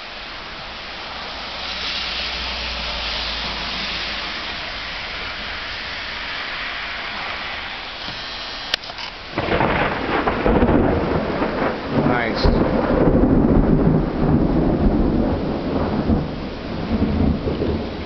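Thunderstorm: steady rain hiss, then about nine seconds in a loud clap of thunder that goes on as a long, uneven rumble with crackles.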